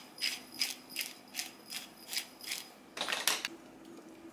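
Hand-twisted sesame seed grinder grinding toasted sesame seeds, a rhythmic ratcheting crunch of about three turns a second, ending in a louder rattle about three seconds in.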